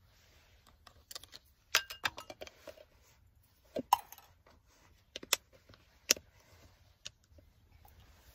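Scattered sharp clinks, clicks and taps of tableware being handled: a glass storage container tipped over a stainless steel camp mug and a plastic food tray being touched. The clicks come singly and in short clusters throughout.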